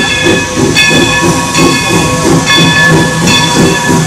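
Steam locomotive New Hope & Ivyland #40, a 1925 Baldwin 2-6-2, approaching slowly with its bell ringing, a stroke about every 0.8 seconds. Steam hisses under it, with a quick steady chugging of about four beats a second.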